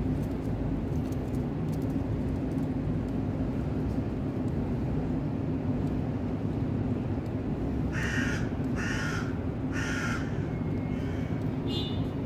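A crow cawing three times, harsh calls about a second apart, with a couple of fainter calls after, over a steady low background hum.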